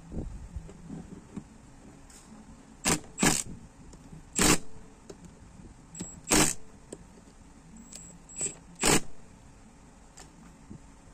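Metal clatter from a common-rail high-pressure fuel pump body and tools being handled on a bench: a handful of short, sharp knocks among fainter rustling and scraping.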